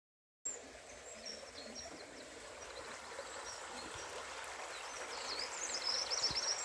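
After a brief silence, a small stream running steadily, with small birds chirping over the water noise and a quick run of chirps near the end.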